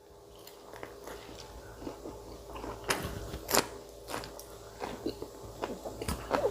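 Close-miked eating sounds: a person chewing with irregular wet clicks and a few sharp crunchy bites, the loudest about three seconds in and again half a second later.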